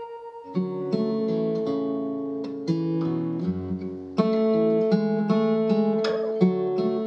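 Instrumental music: an acoustic guitar playing plucked chords. It comes in about half a second in after a brief lull, and a louder chord lands about four seconds in.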